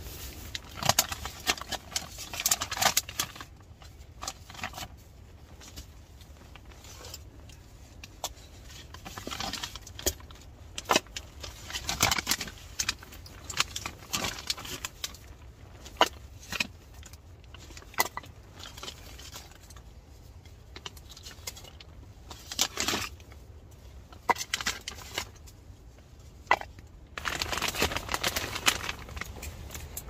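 Irregular clicks, knocks and rustling of split firewood logs and packaging being handled and moved about, with a longer stretch of rustling near the end.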